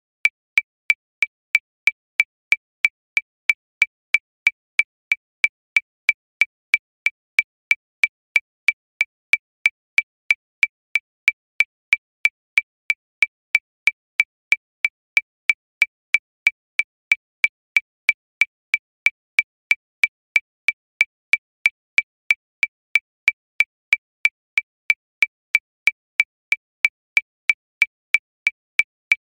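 Metronome click track at 185 beats per minute: short, high clicks, about three a second, all alike with no accented beat.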